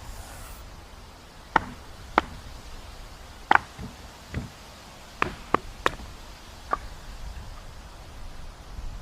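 Sharp knocks of a tool striking wood, about eight at irregular spacing over a low steady rumble.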